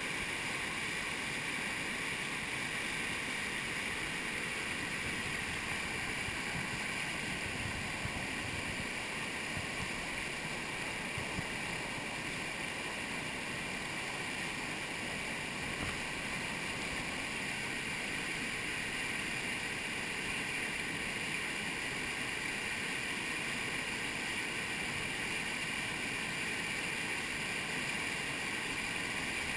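Steady rushing of river water pouring over a low dam and churning in the whitewater at its foot.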